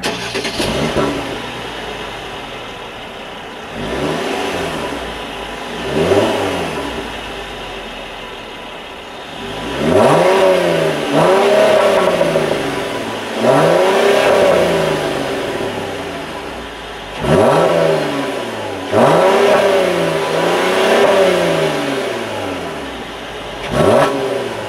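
Mercedes-Benz SL 350's 3.5-litre V6 idling and being revved in the stationary car, about ten times: short blips and longer revs, each rising in pitch and falling back to idle.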